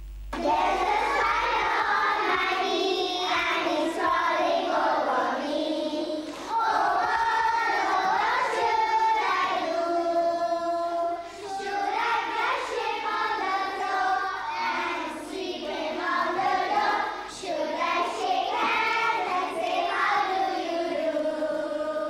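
A group of children singing a song together in unison, with long held notes and short breaks between phrases; it starts abruptly just after the opening.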